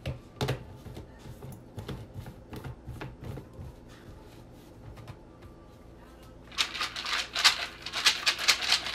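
Plastic personal-blender cup holding walnuts and pecans being handled, with light clicks and knocks as the lid goes on. From about six and a half seconds in, the nuts rattle loudly as the cup is shaken.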